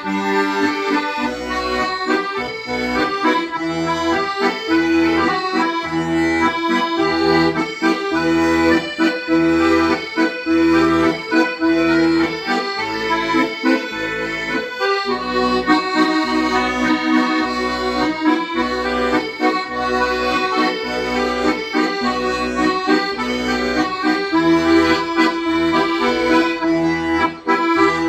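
Accordion playing a melody with held notes over a bass line that pulses at even spacing.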